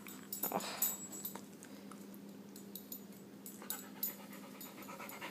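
Small dog panting in quick, shallow breaths, patchy at first and then a steady run of quick pants near the end. The heavy panting is a symptom of the dog's Cushing's disease.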